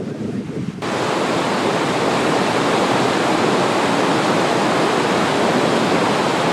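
A waterfall's steady, loud rush of falling water, cutting in abruptly about a second in after a brief low wind rumble.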